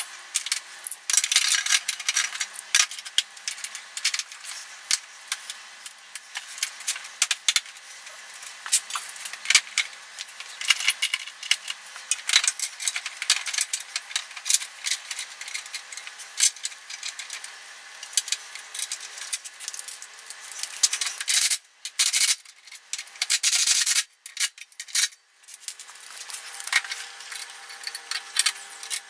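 Hands refitting a scooter's plastic tail panel, metal rear rack and fittings: a steady run of small clicks, knocks, rattles and scraping of plastic and metal parts.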